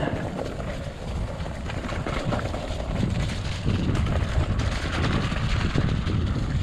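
Mountain bike riding downhill on a muddy forest trail: tyres rolling over dirt and leaves, with many small knocks and rattles from the bike over bumps, and wind rushing on the microphone.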